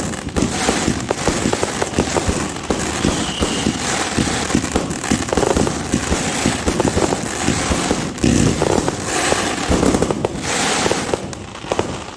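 A 100-shot fireworks cake (Legendary Fireworks Heavenly Harmony 2.0) firing in rapid succession: dense overlapping bangs and crackling, thinning slightly near the end.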